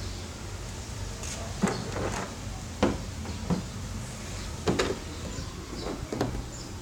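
Several separate knocks and clacks, about five spread over a few seconds, over a low steady hum.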